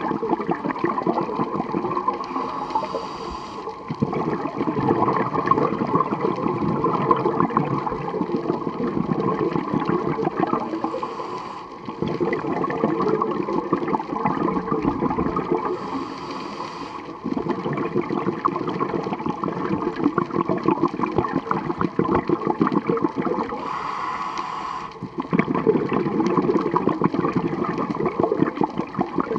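Scuba diver breathing through a regulator underwater: long gurgling rushes of exhaled bubbles, broken four times by a short hiss of inhaling.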